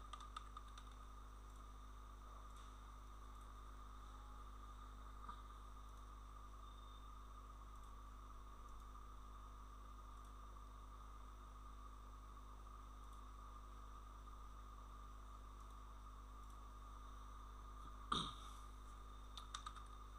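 Near silence: a steady low electrical hum with faint hiss, broken by a few faint clicks just after the start and one sharp click about eighteen seconds in.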